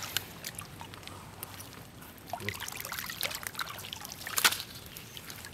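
A hand digging in a water-filled hole of soft mud: wet squelching and sloshing with scattered small clicks, and one sharper wet slap about four and a half seconds in.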